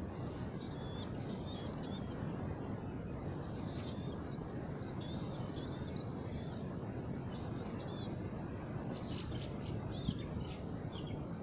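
Small birds chirping in short, repeated high squiggly phrases over a steady background rumble of outdoor noise, with one brief sharp tap about ten seconds in.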